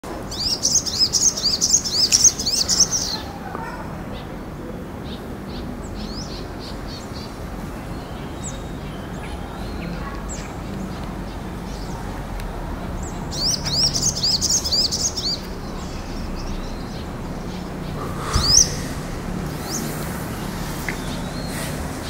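Olive-backed sunbird singing: two bursts of rapid, high twittering about three seconds long, one at the start and one about halfway through, with scattered high chips between them and a sharper call near the end. A steady low background rumble runs underneath.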